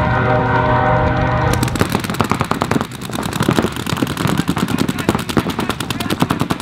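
A steady tone with several pitches stops abruptly about one and a half seconds in. Rapid-fire paintball markers then shoot in fast, continuous streams of pops, more than one gun at once.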